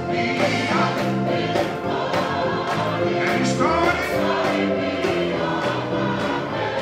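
Gospel choir singing, with hand claps on a steady beat.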